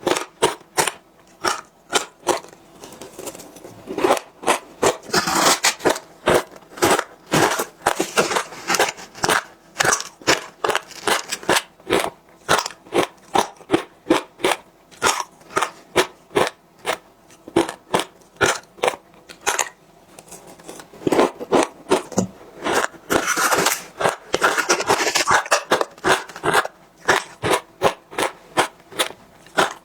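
Ice being bitten and crunched in the mouth, a steady run of sharp crunches about two a second, with busier crackling stretches where the pieces are chewed up.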